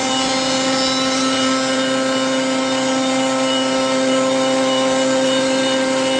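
CNC machining center spindle whining steadily at high speed while a profile cutter mills solid wood, with the hiss of the cut and chips throughout.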